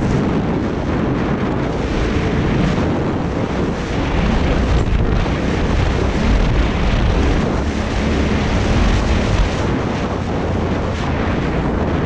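Heavy wind buffeting on a GoPro microphone while a Yamaha Ténéré 700 is ridden over dirt, with the bike's parallel-twin engine running beneath the wind.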